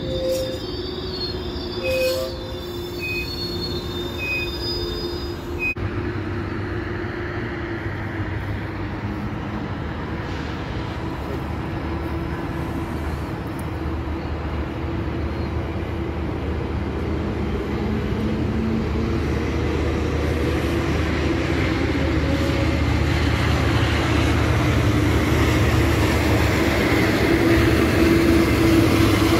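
GO Transit bilevel passenger train rolling past on the rails with a steady wheel squeal. A few short beeps sound about once a second in the first few seconds. The rolling noise grows louder through the second half as the diesel locomotive draws near.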